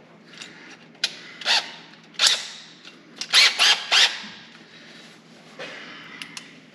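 A drill driving a 1.5-inch hole saw with a pilot bit into the plastic console, in several short, loud bursts of cutting and scraping, with quick pulses about three and a half to four seconds in.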